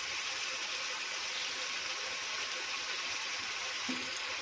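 Chicken and vegetables sizzling steadily in a hot iron wok, with tomato ketchup just poured in.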